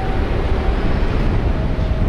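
Steady outdoor city-street ambience, mostly a low rumble with an even hiss and no distinct events.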